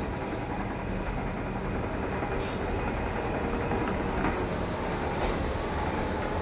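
Cog railway railcar running over the toothed rack rail, its cog wheel meshing with the rack: a steady low rumble with a few sharp metallic clanks.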